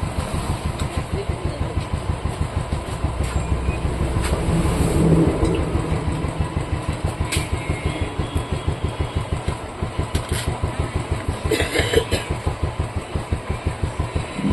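Royal Enfield motorcycle engine idling with an even, rapid beat, a little louder about five seconds in, with a few sharp clicks later on.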